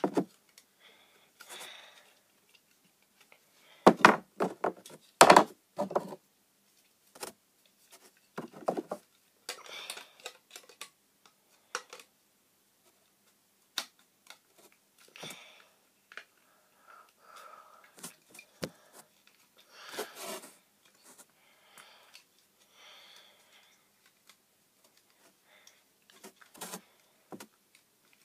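Small plastic model-airliner parts being handled and fitted together: irregular clicks, taps and short scraping rustles, with a couple of louder knocks about four and five seconds in.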